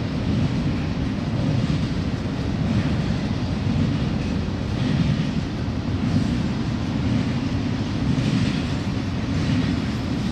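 Union Pacific double-stack container train rolling past at track speed: a steady low rumble of steel wheels on rail.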